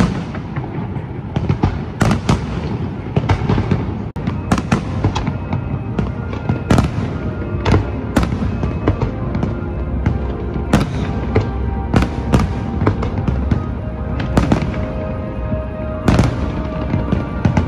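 Aerial fireworks bursting in a continuous barrage: loud bangs about once or twice a second with crackling between them. Music plays underneath.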